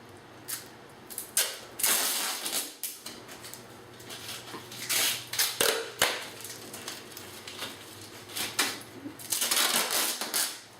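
Duct tape being pulled off the roll in three ripping strips, with short taps and handling knocks between.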